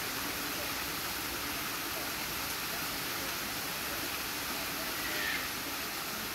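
Steady rush of moving water at an even level, with faint background voices and a short high chirp about five seconds in.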